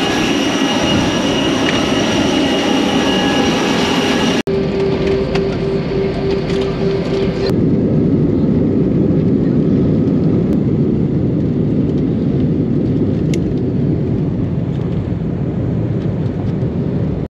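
Airport apron noise with a steady high whine of jet engines. After sudden cuts about four and a half and seven and a half seconds in, it gives way to the steady low rumble inside an airliner cabin as it rolls along the runway.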